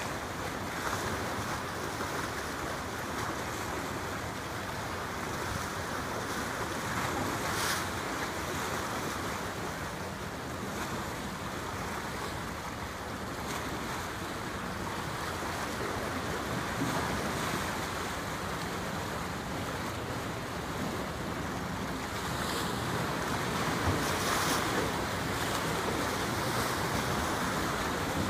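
Steady wind buffeting the microphone over water washing along the hull of a passing oil tanker, with brief louder gusts about a third of the way in and again near the end.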